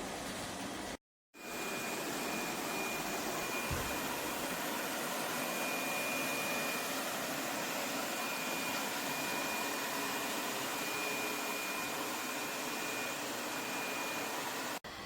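LEFANT M2 Pro robot vacuum running: a steady suction hum with a thin high whine over it. The sound cuts out completely for a moment about a second in.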